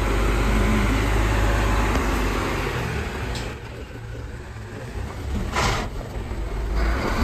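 Diesel engine of a Mercedes truck-mounted concrete pump running as the truck drives slowly in, a steady low rumble that eases after a few seconds. There is a short hiss about five and a half seconds in.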